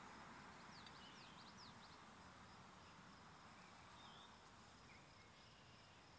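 Faint outdoor ambience: a quick run of small bird chirps about a second in and a couple more later, over a low, slowly fading hiss.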